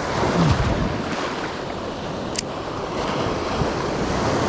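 Ocean surf breaking and washing up the beach, with wind on the microphone. A short low falling tone comes about half a second in and a single sharp click a little over two seconds in.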